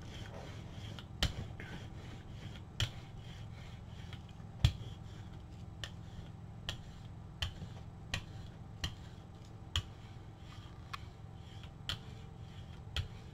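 Brayer rolling acrylic paint out across a gel printing plate: a steady rubbing with about a dozen sharp clicks, coming closer together in the second half.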